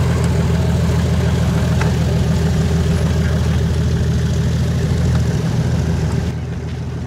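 Light tow plane's piston engine idling with its propeller turning, a steady low drone. The sound drops abruptly and gets quieter about six seconds in.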